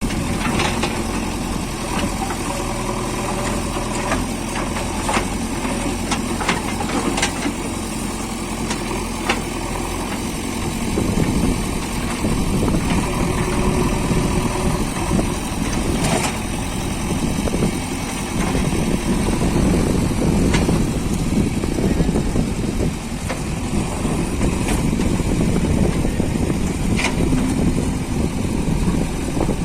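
JCB 3DX backhoe loader's diesel engine running, steady for the first ten seconds, then rising and falling under load as the machine works from about ten seconds in. A few sharp knocks are heard along the way.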